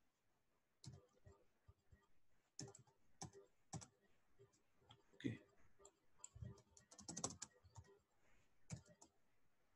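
Faint computer keyboard keystrokes: scattered single clicks, with a quick run of several about seven seconds in.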